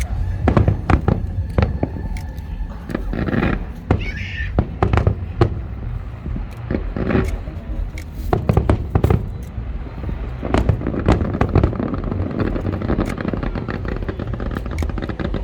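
Aerial fireworks going off in a show: a quick, irregular run of sharp bangs and cracks over a continuous low rumble.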